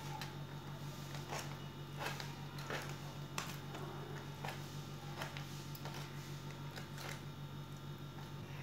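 Kitchen knife cutting raw beef into small pieces on a glass plate, the blade clicking against the glass irregularly, about once a second, over a steady low hum.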